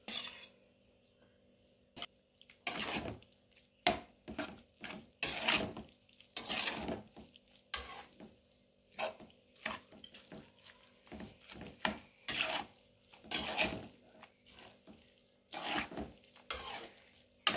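Steel ladle mixing curd into cooked rice in a steel kadai: wet, squishy stirring strokes about once a second, with the ladle now and then knocking on the pan.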